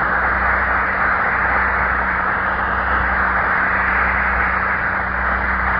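Live audience applauding at length, an even clapping wash in an old mono recording, with a steady low mains hum beneath it.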